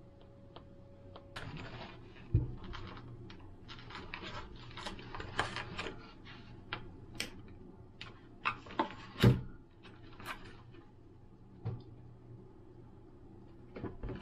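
Plastic-wrapped food packages handled on a stainless-steel counter: crinkling film and trays with clicks and rustles, and a few dull thumps as packs are set down, the loudest about nine seconds in.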